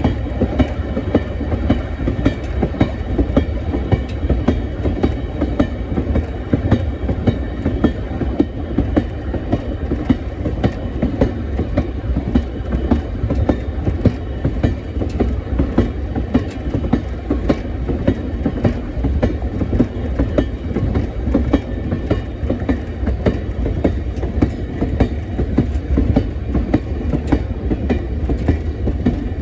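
A train's wheels running steadily along the track, with a continuous low rumble and a dense, uneven clicking over the rails.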